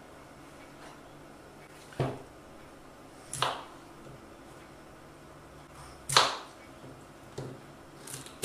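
Kitchen knife halving peeled potatoes on a plastic cutting board: several sharp knocks of the blade hitting the board, spaced one to three seconds apart, the loudest at the very end.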